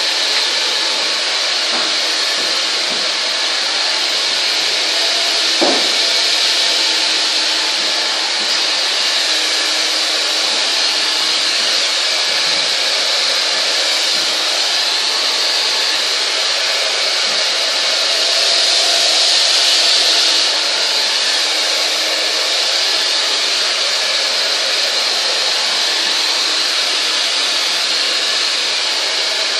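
Handheld hair dryer blowing steadily while blow-drying hair, an even airy whir with a faint hum under it. A short knock comes about six seconds in, and the dryer grows a little louder for a couple of seconds about two-thirds of the way through.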